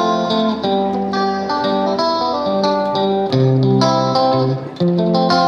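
Background music led by guitar, with notes changing about every half second.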